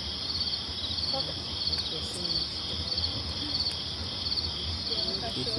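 Night insects, crickets, chirping: a steady high trill with short pulsed chirps repeating about once a second.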